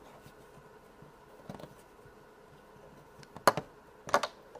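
Faint handling of Play-Doh and plastic toy tools, then two sharp plastic clicks about two-thirds of a second apart near the end as the tools knock against the table.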